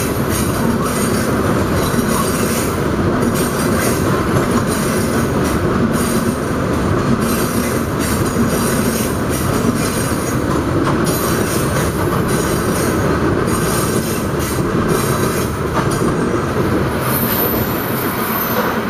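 Loaded coal cars rolling past: a steady, loud rumble of steel wheels on rail, with irregular clicks as the wheels pass over rail joints.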